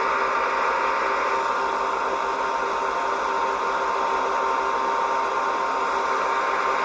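A machine running with a steady, unchanging drone and whine.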